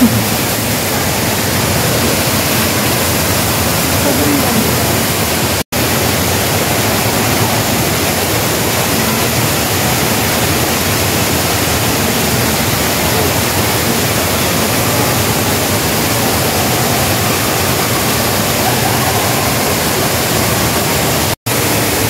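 The Rain Vortex indoor waterfall pouring down from the dome's roof opening: a loud, steady rushing of falling water, cut off for an instant twice.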